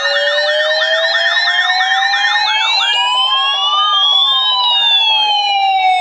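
Several Midland weather radios sounding their alert alarms at once on receiving a NOAA Required Weekly Test. A fast warbling siren-like tone stops about halfway through, while a slow wail rises and then falls, with short beeps on and off.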